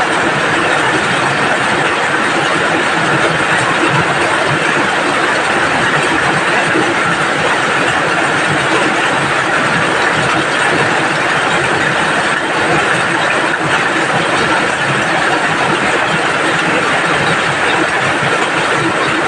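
Steady, loud rain falling without let-up.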